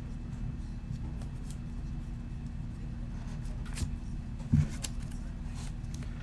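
Steady low hum with a few faint handling clicks and one short dull knock about four and a half seconds in.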